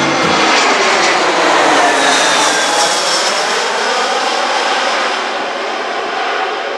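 Jet aircraft passing overhead: a loud roar with whining tones that fall in pitch as it goes by, fading over the last couple of seconds.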